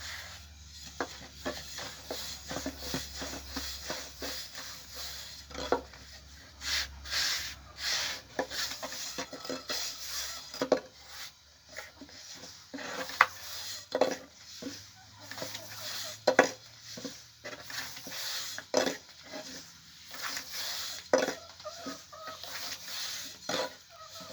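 Pots and utensils being handled while cooking: irregular clinks, knocks and scrapes, some sharper than others.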